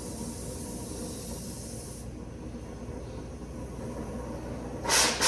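Cutting torch hissing steadily, cutting off about two seconds in; near the end it gives two short, loud bursts of hiss.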